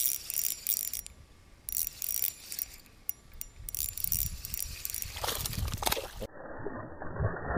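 Light metallic clicking and rattling as a spinning reel is cranked, then a loud splash at the boat's side about five seconds in as a bass strikes the lure at the surface. Just after the splash the sound turns suddenly muffled.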